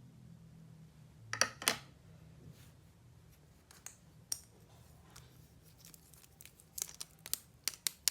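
Toy packaging being handled and opened by hand: two sharp crackling snaps about a second and a half in, then scattered clicks and rustles of plastic and cardboard.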